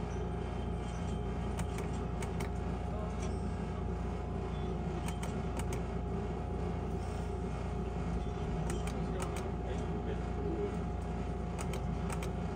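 Electronic skill game machine with a steady low hum and a constant tone behind it. Short sharp clicks come in small clusters four times as its reels are played.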